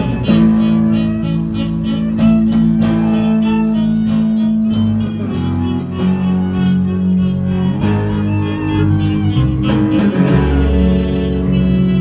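Small string ensemble playing: a bowed violin and cello holding long notes over a double bass line, with some plucked string sound, heard through small amplifiers.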